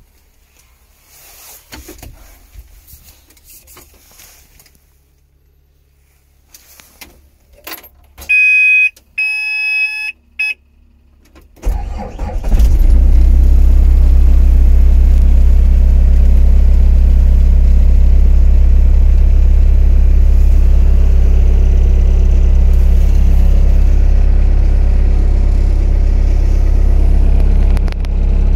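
A few small clicks, then a few loud electronic beeps from the cab's warning buzzer as the ignition is switched on. About twelve seconds in, the excavator's Yanmar diesel engine cranks, starts and settles into steady running.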